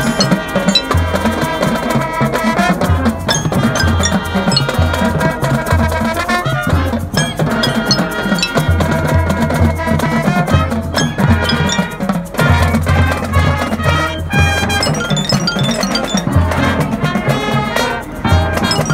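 Marching band show music: mallet percussion such as marimba and glockenspiel ringing over a steady drum pulse.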